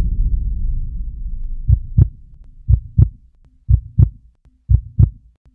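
A deep low boom dies away over the first second or so. A heartbeat sound effect follows: four lub-dub pairs of low thumps, about one pair a second.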